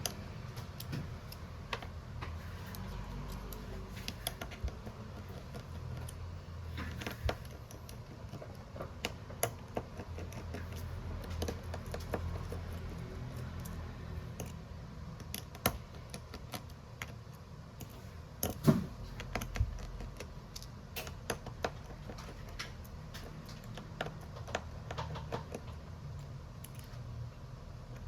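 Irregular small clicks and taps of hand tools and parts being handled while an OPPO Reno8 5G phone is taken apart for a screen replacement, with a louder knock about 19 seconds in.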